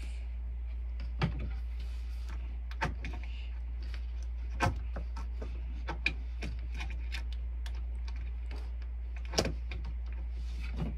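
A steady low hum with a scattered handful of short knocks and clicks, the two loudest about a third of the way in and near the end.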